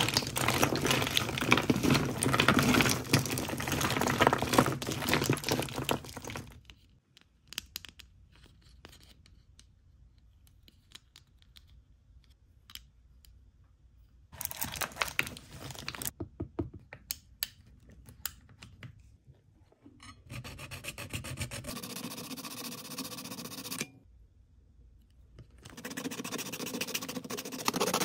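Crinkling and rustling of plastic wrappers as hands rummage through a pile of miniature toy packages, stopping after about six seconds. Then small clicks and taps as a tiny clear plastic container is handled, and near the end the scratchy scraping of a blade cutting into the plastic container.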